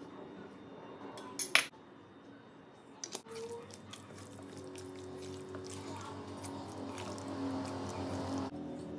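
Raw chicken strips being stirred in a stainless steel bowl with a utensil: wet squelching with light scrapes against the metal, from about three seconds in. About a second and a half in there are a couple of sharp knocks.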